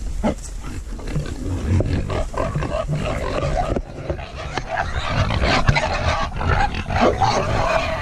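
A group of hungry Red Wattle pigs grunting and calling loudly and irregularly at feeding time, crowding in for the feed.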